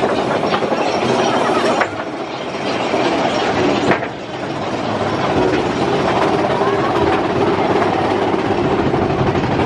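Big Thunder Mountain Railroad mine-train roller coaster running along its track: a continuous loud rattle and clatter of the wheels and cars, with sharp clacks about two and four seconds in. A steadier running hum takes over after about five seconds.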